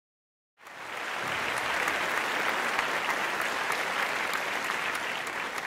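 Theatre audience applauding: dense, steady clapping that starts suddenly about half a second in.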